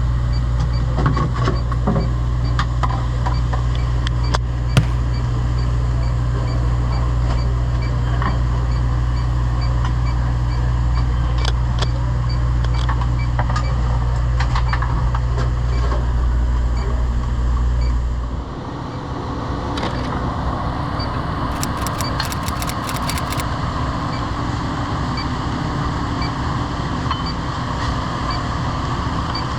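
Commercial refrigerator's compressor running with a steady low hum that cuts off abruptly about two-thirds of the way in, leaving a fan-like whir. Over it an electronic refrigerant leak detector ticks faintly and evenly, with a few sharp clicks near the end.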